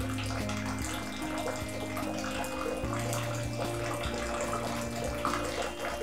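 Water running steadily out of the spout of a small wall-mounted instant electric water heater, its flow turned down so the water heats up.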